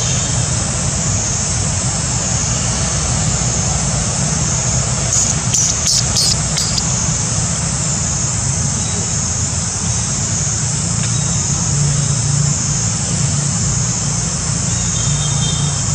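Steady outdoor background noise: a continuous high drone over a low rumble, with a brief cluster of clicks about five to seven seconds in.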